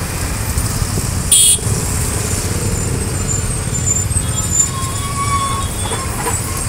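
Steady low rumble of road traffic and motorcycle engines, with one short, loud, high-pitched vehicle horn beep about a second and a half in.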